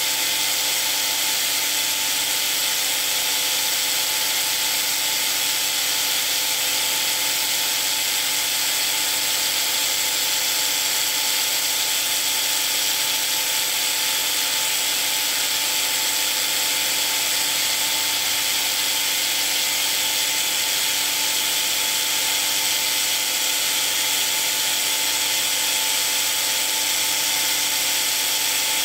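Electric power sander running steadily on oak, a constant machine whine over a hiss of abrasive on wood, with no pauses or changes in speed.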